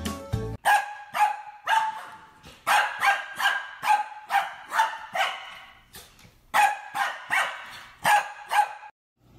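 A small white fluffy dog barking over and over, short sharp yapping barks two or three a second, with a brief pause about six seconds in.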